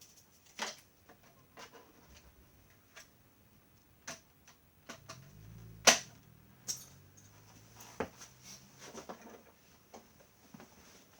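Scattered clicks and knocks of plastic vacuum-cleaner parts being handled and fitted together, with one sharp click about six seconds in standing out above the rest.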